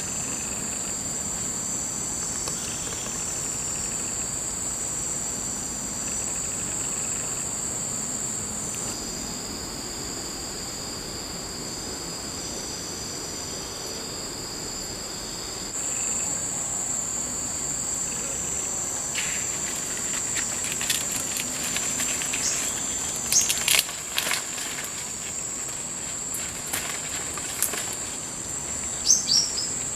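A steady, high-pitched insect chorus drones throughout, several buzzing tones layered and shifting. In the second half, scattered sharp clicks and crackles come through, and a few short falling chirps sound near the end.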